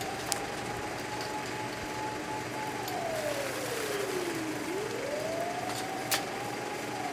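Fire engine siren wailing, its single tone rising, holding high, then sliding down and climbing again in a slow cycle of about four seconds. Two sharp clicks cut in, one just after the start and one near the end.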